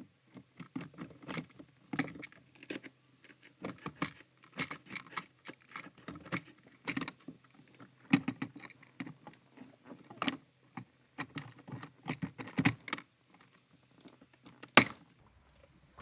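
Hard plastic interior trim being handled and worked into place: irregular clicks, taps and light rattles, with one sharp click near the end.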